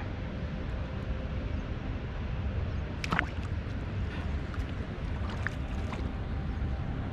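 Steady low rumble of outdoor background noise, broken by a few short sharp ticks and squeaks, the loudest about three seconds in.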